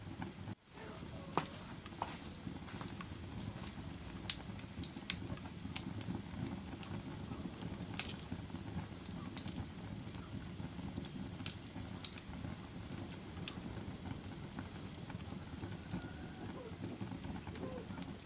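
Wood fire burning: a steady low rush with scattered sharp crackles and pops at irregular intervals. The sound drops out briefly about half a second in.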